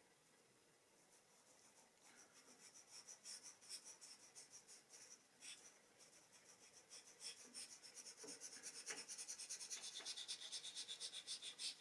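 Dry pastel stroked on thin drawing paper: quick, short, scratchy strokes, faint at first and coming faster and closer together in the second half.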